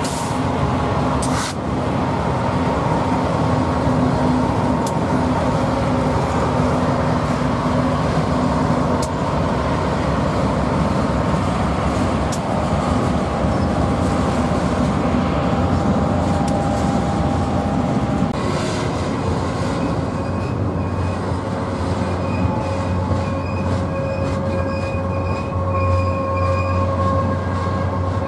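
BNSF double-stack intermodal freight train passing close by, a loud steady rumble of diesel locomotives and then container well cars rolling over the rails. From about two-thirds of the way in, thin steady wheel squeals ring out over the rumble.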